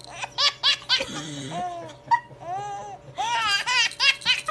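A baby laughing in two bouts of short, rhythmic bursts, the second starting about three seconds in.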